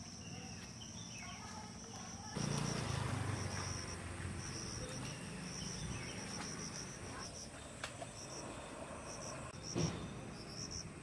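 Insects chirring in a steady, pulsing high trill. About two seconds in a louder rustling and sloshing of water sets in as a person wades into flooded pond water, with a brief louder splash near the end.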